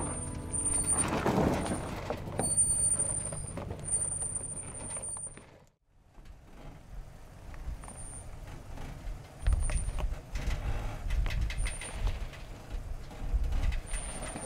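Lifted Ram Power Wagon pickup crawling down a steep rocky trail: engine running low with tyres grinding over rock, and short high-pitched squeals now and then. The sound drops out briefly about six seconds in, and a heavier low rumble sets in from about nine and a half seconds as the truck works over boulders.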